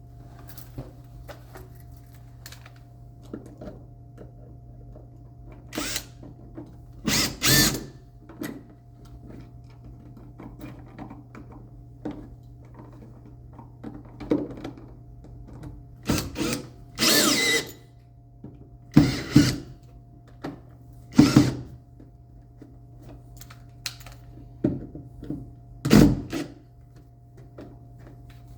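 A wall switch being fastened into its electrical box: a power screwdriver runs in short spurts, several times, to drive the mounting screws, with sharper knocks and clicks of handling in between.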